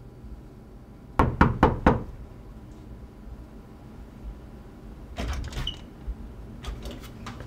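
Four quick knocks on a panelled door, then about three seconds later softer rattling and a few clicks as the door is unlatched and opened.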